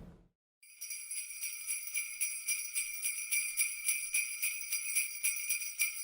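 Sleigh bells jingling in a steady rhythm of about four to five shakes a second, starting just under a second in after a brief silence.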